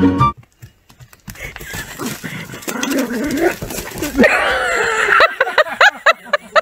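Small dog yapping in quick, repeated high barks, starting about five seconds in after a few seconds of noisy, mixed animal sounds. Music cuts off just at the start.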